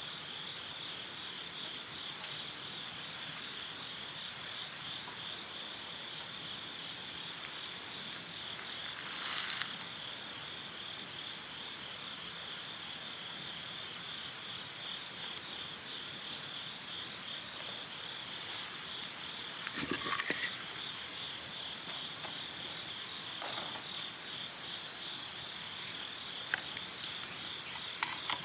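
Insects chirping in a steady, high, finely pulsing trill, with a few brief louder crackles or knocks from the campfire about a third of the way in and again around two-thirds through.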